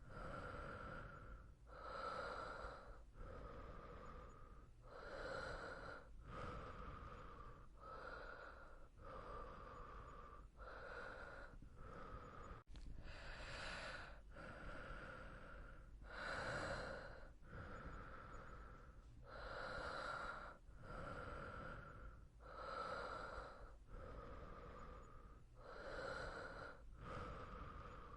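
A person breathing steadily in and out, each inhale and exhale a separate rush of air, about one a second.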